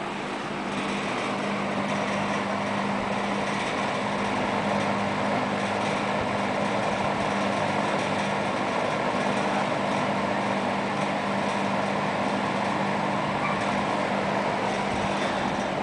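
Vintage Wells Royal 3-speed box fan (model 9711) running on medium speed: a steady rush of air with a low, even motor hum underneath.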